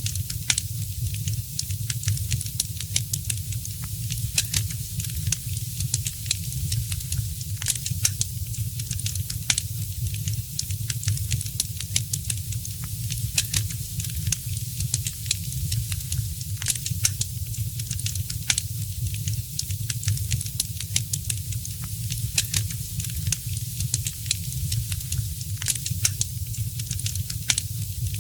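Wood fire crackling, with irregular sharp pops and snaps over a steady hiss and a low rumble.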